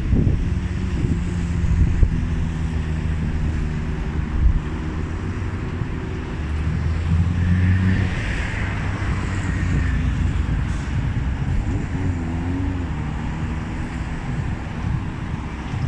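Class 701 Arterio (Bombardier Aventra) electric multiple unit pulling away and running past close by. Its traction equipment gives a stack of steady low tones, under a hiss of wheels on rail that is strongest about eight seconds in.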